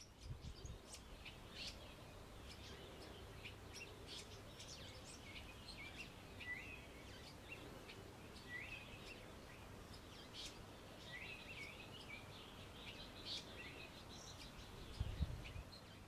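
Male Greater Double-collared Sunbird singing a faint, fast, high twittering courtship song of short chirps with a few upward-sliding notes. Low rumbles come in near the start and again about a second before the end.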